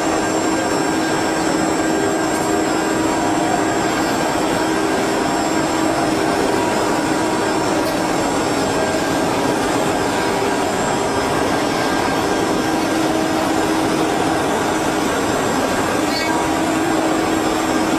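Multi-spindle rotary CNC wood carving router running, its spindles cutting wooden figures together: a steady, unbroken machine whine and rush of noise with several held tones through it.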